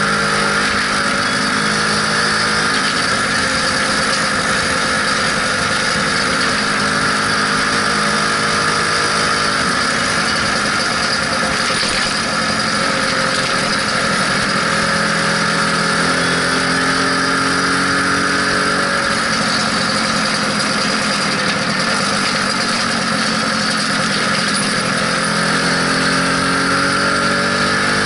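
Lambretta SX 200 scooter's single-cylinder two-stroke engine running on the move, its pitch rising and falling several times with the throttle, over a steady rush of wind and road noise.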